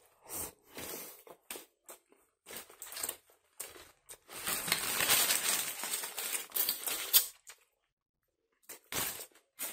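Aluminium foil and a paper wrapper around a kebab sandwich crinkling as it is handled, with bites and chewing between: short rustles, then a denser stretch of crinkling lasting about three seconds midway, and a brief lull near the end.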